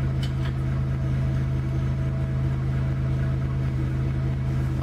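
Forklift engine idling steadily as a low, even hum. A few light clicks come just after the start.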